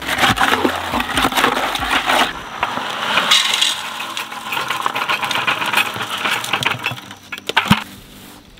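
Wet concrete mix being stirred and scraped by gloved hands in a plastic bucket, then a gritty pour as the concrete slides out of the bucket into a terracotta flower pot. The gritty scraping stops about a second before the end, leaving a couple of sharp clicks.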